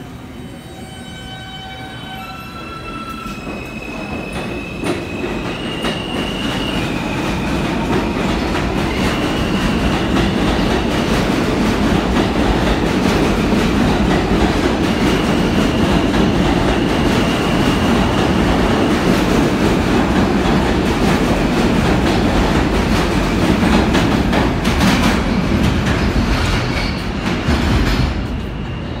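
A New York subway R160 train pulling out of the station. Its propulsion whine climbs in a series of distinct steps as it accelerates, then the wheels rumble and clatter over the rails, louder as the cars pass. The noise drops away near the end.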